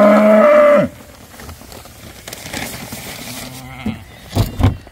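A cow's long moo that ends about a second in. Near the end come two sharp thumps.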